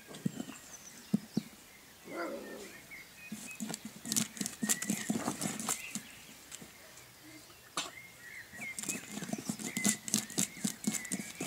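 A puppy licking and pawing at a flat board on paving: bursts of quick wet clicks and scratches, busiest in the middle and toward the end.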